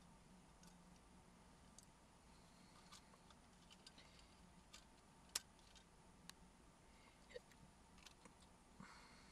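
Faint, scattered small plastic clicks and taps from the pieces of a broken car key being handled and fitted together. The sharpest click comes about five seconds in.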